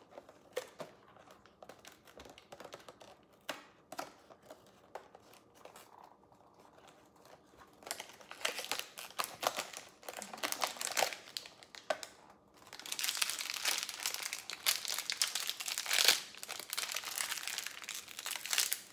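Blind toy-figure packaging being opened by hand: scattered light clicks and taps at first, then from about eight seconds in a dense crinkling and tearing of the wrapper, loudest in the last six seconds.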